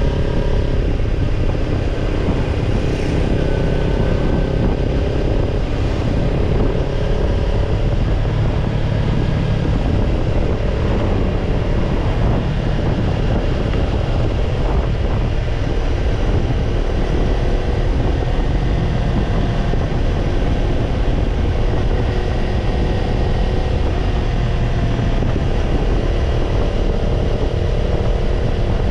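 Kawasaki Ninja 250's parallel-twin engine running steadily through a BEET NASSERT Evolution Type II titanium slip-on muffler, under a constant rush of wind noise with no clear revving.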